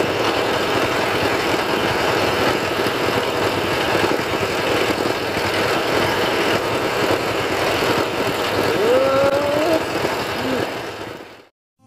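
Steady running noise of a diesel engine, with a short rising whine about nine seconds in, fading out near the end.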